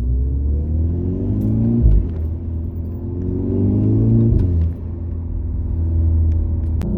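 Volkswagen Golf GTI Mk6's turbocharged 2.0-litre four-cylinder, fitted with a COBB SF cold air intake and 3-inch dump pipe, accelerating through the gears, heard inside the cabin. The engine note climbs, drops at an upshift about two seconds in, climbs again and drops at a second shift a little before five seconds, then runs steadier.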